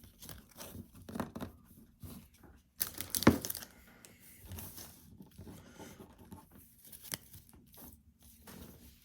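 Foil trading-card pack wrappers crinkling and tearing as the mess of wrappers and cards is gathered up by hand, with scattered rustles and a louder crackle about three seconds in.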